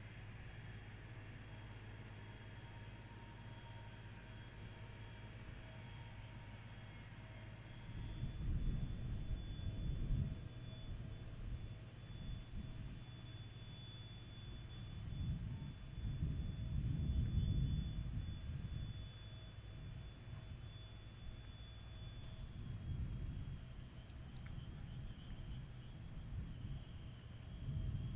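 Cricket chirping steadily in rapid, evenly spaced pulses, over faint steady hum. A low rumble swells up several times from about a third of the way in and is the loudest sound.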